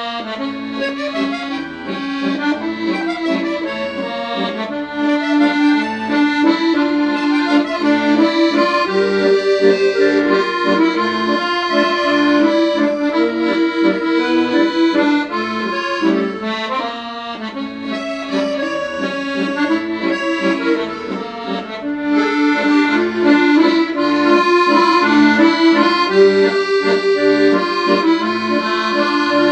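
Accordion music: a melody played over held chords, softening in the middle and growing louder again near the end.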